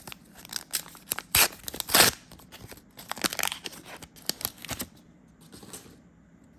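A foil trading-card booster pack wrapper torn open and crinkled: a run of short rips and crackles, the loudest about one and a half and two seconds in, dying away after about five seconds.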